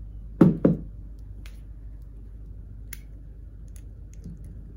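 Sealed lead-acid battery set down on a tabletop: two thuds in quick succession about half a second in. A few faint clicks follow as crocodile clip leads are handled at its terminals.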